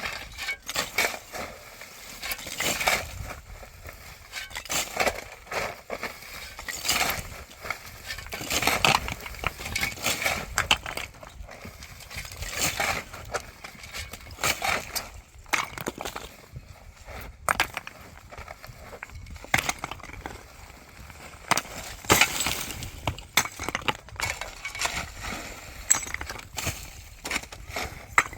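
Irregular sharp knocks, cracks and clinks of building debris being broken and handled, a few strikes a second with short pauses.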